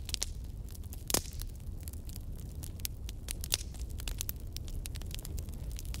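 Wood bonfire crackling: irregular sharp pops and snaps over a low steady rumble, with one loud pop about a second in.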